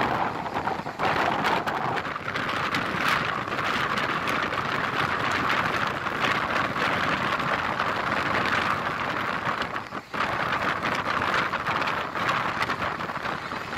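Steady rushing running noise of the Jabalpur–Haridwar Special train in motion, wheels on rails mixed with wind. It dips briefly about ten seconds in.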